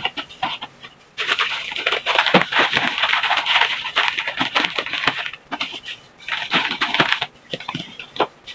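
Graham crackers being crushed by hand inside their plastic-lined wrapper. A dense run of crackling and crinkling starts about a second in and fades near the end.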